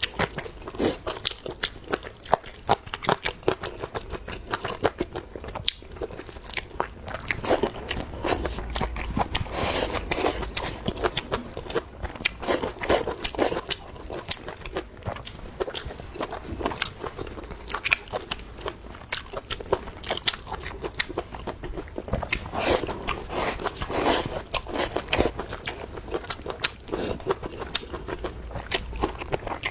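A person chewing and biting food close to the microphone: a steady run of irregular wet clicks and crunches, typical of mukbang eating of sausage and braised pork intestines.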